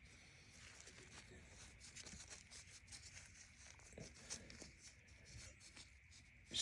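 Near silence: room tone with faint scattered small ticks and rustles.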